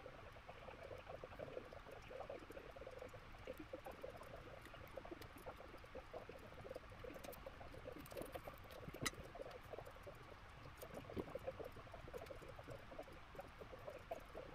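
Faint, dense patter of small ticks and crackles from hand soldering work on a circuit board, with a sharper click about nine seconds in.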